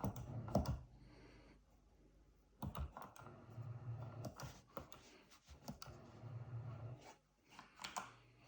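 Irregular clicking of arcade joystick and button microswitches, a dozen or so sharp clicks spread unevenly, with a faint low hum in between.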